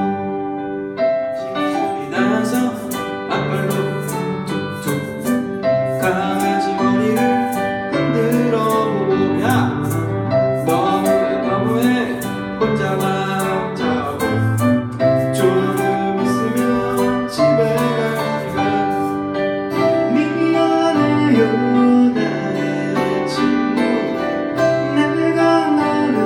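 Two acoustic guitars played live, with a man singing into a microphone over them.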